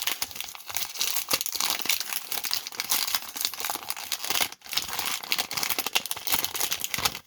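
Wax-paper wrapper of a 1991 Topps baseball card pack being torn open and crumpled: continuous crackling and crinkling, with a brief pause a little past halfway.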